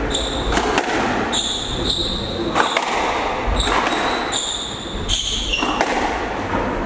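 Squash rally in an echoing court: the ball's sharp knocks off rackets and walls, and shoes squeaking repeatedly on the wooden court floor.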